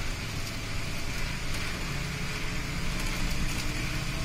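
Steady running noise inside a city bus: a low engine hum under a constant hiss of tyres on the wet road.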